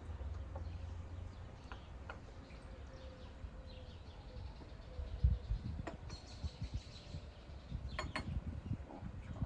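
Garden ambience: a steady low rumble of wind on the microphone, with faint bird chirps and a few light knocks, like tea glasses set on the table, in the second half.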